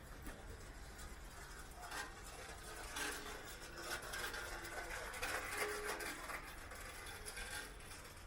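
Street ambience: a faint, mixed background of traffic and indistinct sounds, with many small scattered ticks and a busier stretch in the middle.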